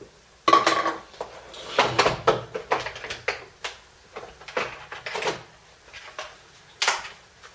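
Plastic casing parts of a Karcher K2 pressure washer being pulled apart and handled: a run of irregular clicks, knocks and short scrapes, loudest about half a second in, about two seconds in and near the end.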